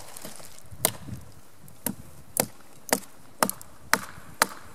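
An axe chopping into a dry, dead branch: a series of about seven sharp blows, settling into roughly two a second.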